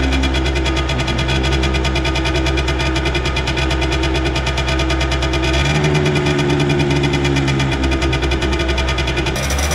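Two-stroke Peugeot Speedfight scooter engine running, heard right at its tailpipe as a rapid, even exhaust pulsing. Its note changes a little over halfway through.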